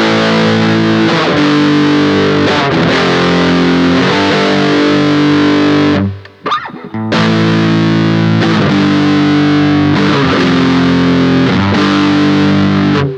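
Ibanez AX120 electric guitar played through a Boss Katana 50 amp's distortion: held, distorted chords that change every second or two. The playing breaks off for about a second midway, resumes, and stops at the end.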